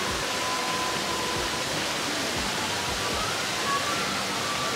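Steady rushing noise, even and unbroken, with faint music underneath.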